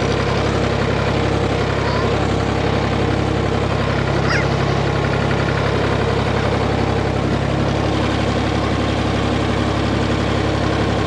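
Tractor engine running steadily at an even speed, without revving.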